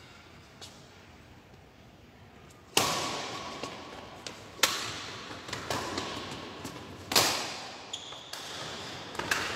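Badminton rackets striking a shuttlecock in a rally: four sharp hits about two seconds apart, the first about three seconds in, each echoing in a large hall, with lighter knocks between them.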